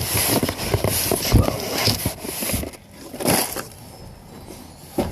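Cardboard boxes and packing paper being handled and opened: rustling and crinkling with scattered knocks, busiest for the first few seconds, one more burst a little after three seconds in, then quieter.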